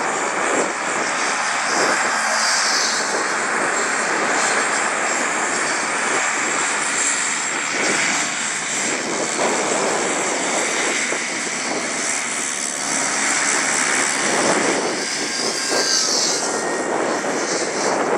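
Engine of a control-line stunt model airplane running steadily, its sound swelling and fading as the plane circles the pilot on its lines through loops.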